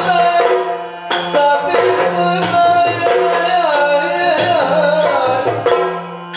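Yakshagana ensemble music for a dance passage: drum strokes over a steady held drone, with a gliding melodic line. The music breaks off briefly about a second in and again near the end.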